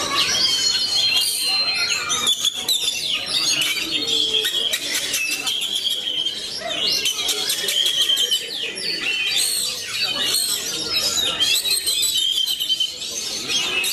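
Oriental magpie-robin (kacer) singing a continuous, varied song of clear whistles and fast stuttering trills.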